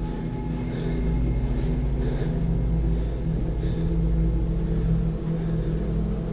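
A steady low droning hum made of several held low tones, with faint soft taps recurring about every three quarters of a second.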